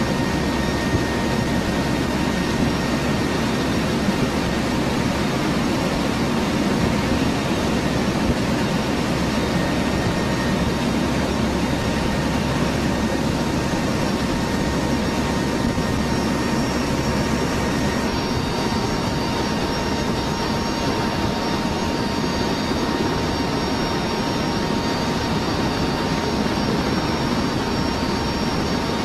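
Steady drone of the HC-130 tanker's turboprop engines and slipstream, heard from inside the aircraft, with a thin steady whine running through it. The higher tones shift about two-thirds of the way through.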